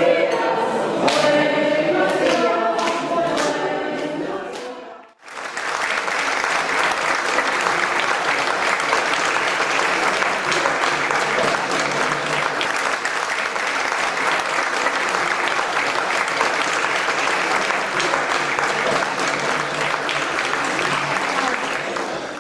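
A mixed group of voices singing together, with hands clapping along in a regular beat, fading out about five seconds in. Then a long stretch of steady audience applause.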